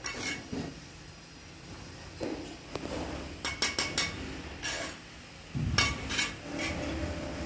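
A steel brick trowel and fired clay bricks clinking and knocking as bricks are set and tapped down into mortar: a few knocks at the start, then a quick cluster of sharp clinks through the middle.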